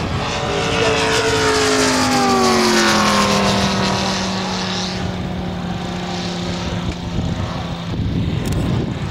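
Engine of a giant-scale radio-controlled model aircraft in flight. Its pitch falls over the first few seconds and then holds at a steady drone for a while.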